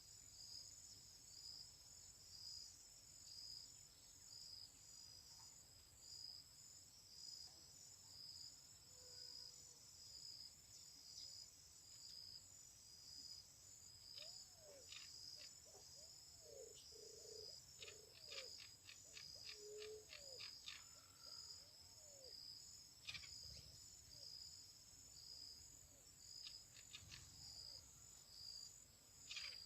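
Faint, steady insect chorus: a high-pitched pulsing trill like crickets. From about halfway there are bursts of rapid ticking and a few short, low chirping calls.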